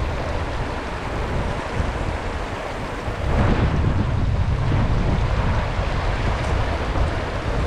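Wind buffeting the microphone over the steady rush of stream water. The gusts grow stronger about three seconds in.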